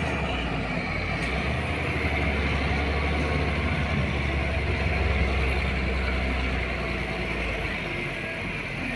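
Heavy truck's diesel engine rumbling as it drives off, the low rumble easing near the end as it moves away.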